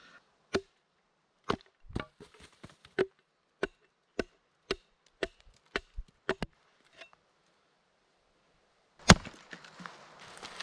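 Sharp blows of a hand tool on deadwood, about fifteen strikes over six seconds at an uneven pace. After a pause comes one louder blow, then rustling.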